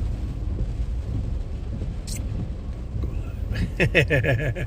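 Steady low rumble of a car's cabin in rainy traffic, with a brief click about two seconds in. A voice comes in near the end.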